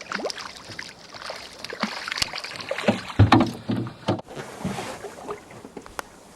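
Irregular knocks, clatters and light sloshing in a small fishing boat on a river, a rapid run of sharp hits in the middle.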